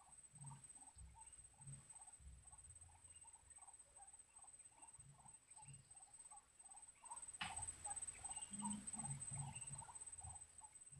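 Quiet forest ambience: a steady high-pitched insect drone with a short chirping call repeated about three times a second. About seven seconds in a sharp click is followed by a couple of seconds of louder rustling.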